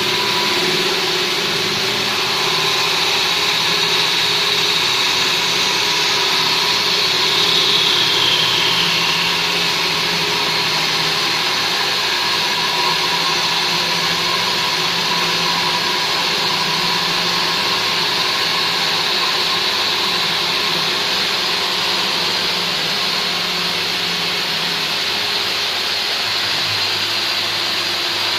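CNC wood lathe turning a large wooden blank, a loud, steady machine whir with the hiss of the cutter taking wood off. About eight seconds in, a high whine slides down in pitch.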